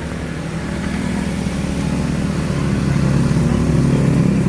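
A motor vehicle's engine running steadily, growing louder over the last couple of seconds.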